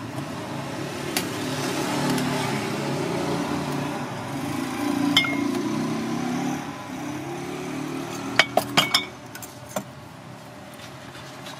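A motor vehicle passing on the street, its engine rumble swelling over a few seconds and then fading. Near the end, a quick run of four or five sharp clinks of hard objects against a china plate.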